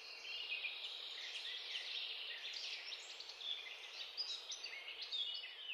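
Many small birds chirping and twittering at once, a dense run of short high chirps and trills.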